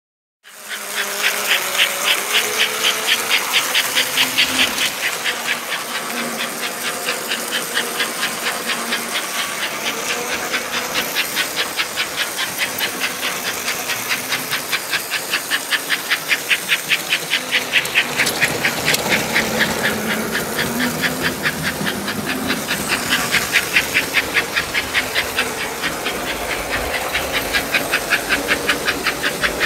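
American Flyer S-gauge Northern steam locomotive model running on its track, with a rapid, even chuffing hiss over the motor and wheels. The sound starts about half a second in.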